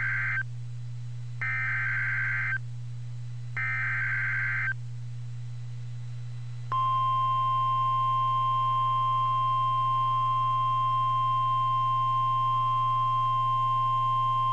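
NOAA Weather Radio emergency alert: harsh warbling SAME digital header bursts, the tail of one and then two more about two seconds apart, followed a couple of seconds later by the steady 1050 Hz warning alarm tone, which marks a warning (here a severe thunderstorm warning) about to be read.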